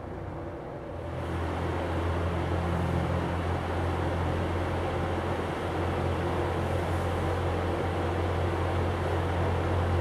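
Berns Air King 20-inch box fan running steadily: a low motor hum under a broad whoosh of moving air. About a second in it gets louder and breathier, then holds steady.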